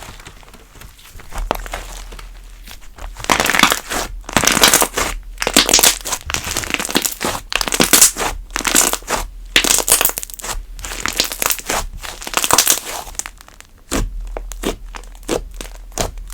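Hands squishing and pulling a thick cream slime, giving irregular sticky crackles and tearing sounds. They come thicker and louder through the middle of the stretch.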